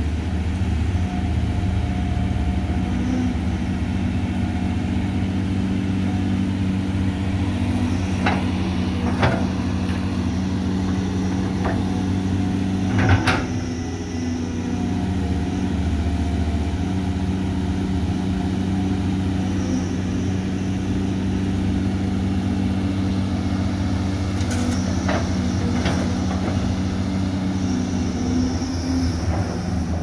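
Caterpillar hydraulic excavator's diesel engine running steadily as it digs soil and loads a dump truck, with several short sharp knocks and clanks from the working machine, the loudest about 13 seconds in and a few more near the end.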